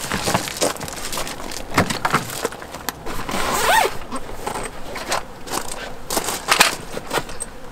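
Footsteps crunching on gravel and camping gear being handled, with irregular knocks, clicks and rustles.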